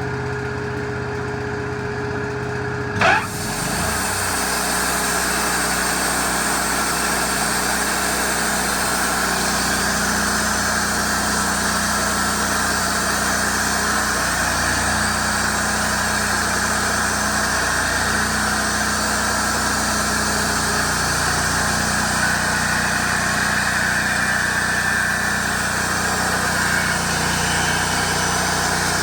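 Wood-Mizer LT40 band sawmill running with its engine steady. About three seconds in there is a sharp loud noise, after which a louder, steady rush joins the engine for the rest of the time.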